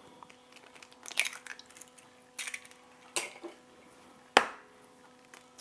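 Eggs being cracked into a glass mixing bowl: a few short crackles as the shell is pulled apart over the bowl, then one sharp knock about four and a half seconds in as the next egg is struck to crack it.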